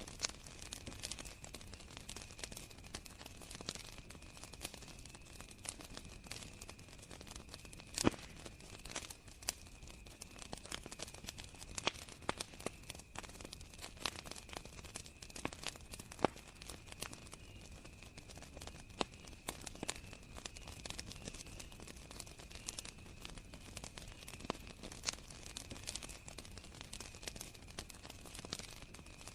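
Campfire crackling with irregular sharp pops, the loudest about eight seconds in, over the steady high-pitched trill of crickets.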